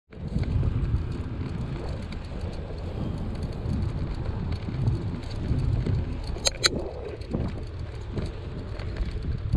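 Bicycle ride heard from a body-mounted camera: wind buffeting the microphone and tyre rumble on asphalt make a steady, gusty low noise. About six and a half seconds in there are two brief sharp high-pitched sounds.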